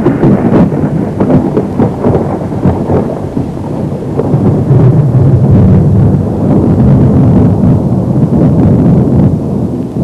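Loud, continuous low rumble with crackling through it, like rolling thunder; it eases slightly a few seconds in, then swells again.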